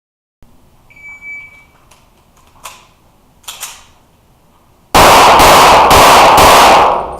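A short high beep about a second in, then a rapid string of pistol shots fired in an indoor range, so loud that they run together into about two seconds of clipped, echoing noise.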